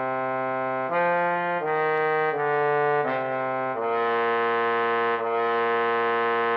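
Trombone tone from notation-software playback, playing a line that steps down through four short notes (F, E-flat, D, C) to two longer low B-flats that end the exercise. Each note is held at an even level and changes cleanly to the next.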